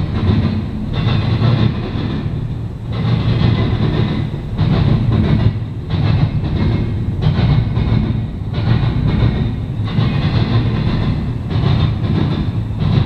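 Double-stack intermodal container cars rolling past, steel wheels on rail: a loud steady rumble with a hiss that swells and fades every second or two as the cars go by.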